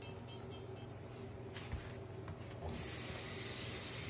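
A few light clicks of sponge gourd pieces being stirred by hand in a stainless steel bowl, then a steady hiss starting about two-thirds of the way in.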